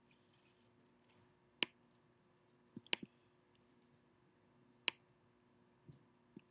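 A few sharp, isolated computer mouse clicks at irregular intervals, two of them close together about three seconds in, with a faint steady hum beneath.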